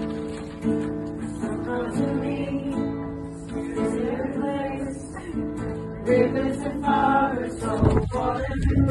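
Acoustic guitar strummed while a small group of voices sings along, the voices coming in more strongly about halfway through. A low rumble near the end.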